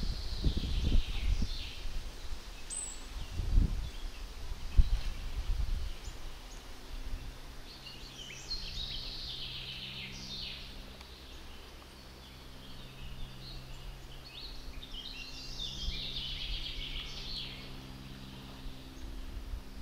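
Songbirds singing in a forest, in several phrases. Low thumps and rumble come in the first few seconds, and a faint steady low drone starts about six seconds in.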